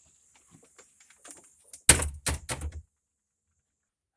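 A few faint small clicks, then one loud thump followed by three quicker knocks over about a second, like something solid being set down or bumped.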